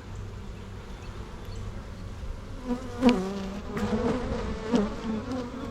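Honeybees buzzing around an open hive, a steady hum at first; from about three seconds in, single bees fly close past with louder buzzing that sweeps down in pitch.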